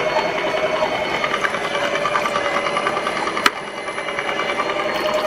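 Tefal Juiceo ZC150 slow juicer running steadily, its motor and auger pressing fruit and vegetables into juice and pulp, with a single sharp click about three and a half seconds in.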